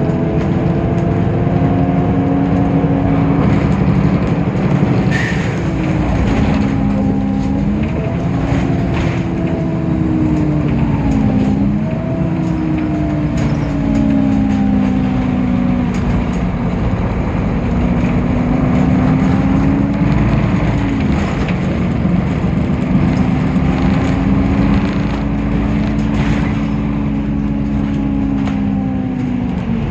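Temsa Avenue LF city bus under way, its DAF PR 228 diesel engine and ZF automatic gearbox running with a low rumble and a droning whine. The whine dips in pitch and climbs back several times, with a few short clicks along the way.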